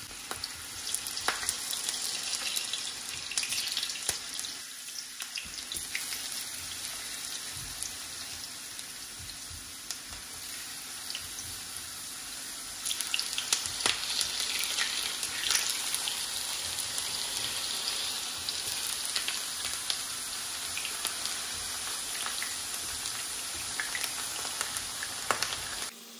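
Sliced potato rounds frying in hot oil in a pan: a steady sizzle with scattered crackles and pops, getting louder about halfway through.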